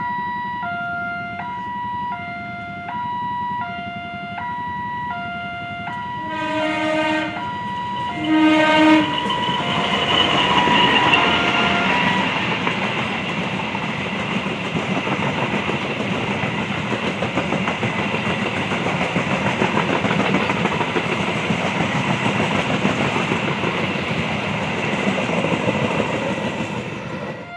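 Level-crossing warning alarm sounding a repeating two-tone chime, then two horn blasts from a CC 203 diesel-electric locomotive about seven and nine seconds in. After that the running noise of the passing passenger coaches covers the alarm and lasts nearly to the end.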